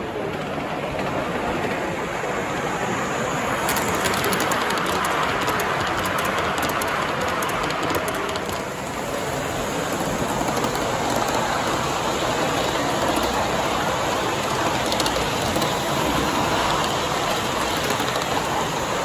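Gauge 1 live-steam model of a New South Wales 38 class locomotive running past on the track, with a steady hiss of steam that grows louder as it approaches. Rapid light clicking is heard from about four to eight seconds in.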